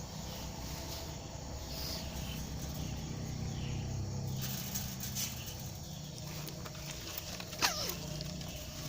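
Faint outdoor ambience with insects and soft bird chirps repeating about once a second, then one sharp bird call near the end that falls steeply in pitch.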